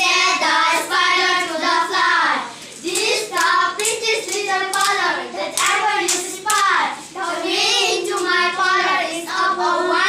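A group of children reciting a poem in a sing-song chant, their voices held on steady pitches phrase after phrase with short breaks between lines.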